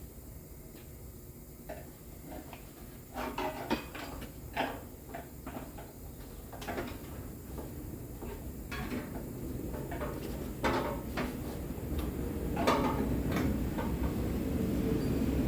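Scattered clinks and knocks of tools and metal parts being handled while a car fender is fitted, a few at a time with pauses between. A low rumble builds near the end.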